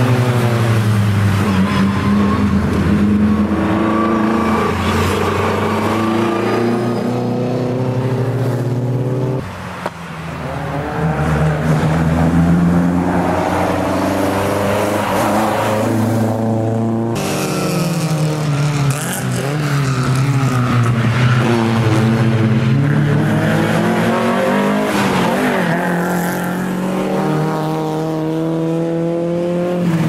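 Historic racing car engines revving hard, the pitch climbing through each gear and dropping sharply at the shifts and lifts, over and over. There is a brief dip about a third of the way through.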